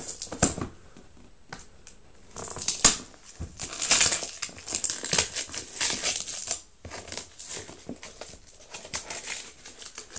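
A cardboard delivery box being opened by hand. Scissors cut at the packing tape near the start, then comes irregular rustling, scraping and crinkling of cardboard and tape as the box is worked open.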